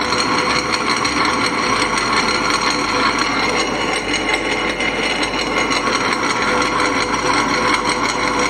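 Elgi Ultra wet grinder's motor running steadily with its steel drum empty. It is powered at 220 V through a step-up transformer from US 110 V mains, and running normally on it.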